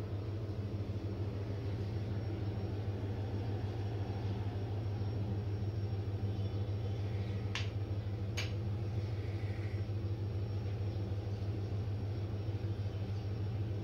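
Steady low machine hum at an even level, with two sharp clicks under a second apart about halfway through.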